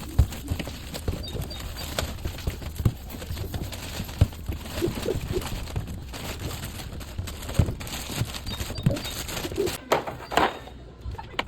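Irregular knocks, clunks and light rustling of groceries being handled and set down while being put away.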